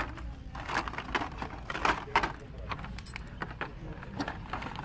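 Hot Wheels blister-card packages being flipped through on metal store peg hooks: irregular light plastic and cardboard clicks and rattles.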